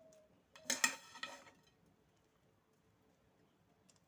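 A kitchen utensil knocking and clinking against the cooking pot, two quick hits about a second in, as fried onions are spread over the biryani layer.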